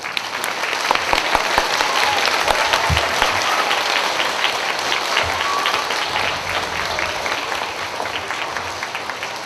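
Large audience of schoolchildren and adults applauding: dense clapping that starts suddenly and slowly tapers off near the end.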